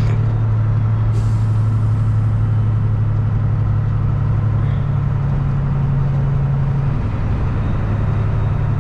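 Semi truck's diesel engine running steadily under way, heard inside the cab, with a short hiss of air about a second in. The engine note changes slightly about seven seconds in.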